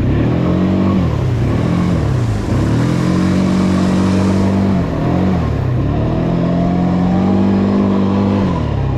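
Quad bike (ATV) engine revving under throttle, climbing and falling in pitch several times and held high for a couple of seconds at a time, then dropping back to a lower steady note near the end.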